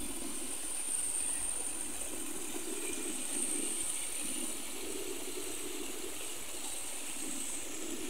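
Small stream pouring over a rocky step in a steady rush of water, close by.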